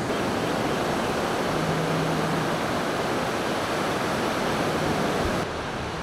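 Steady rush of ocean surf breaking on a sandy beach, a little quieter near the end.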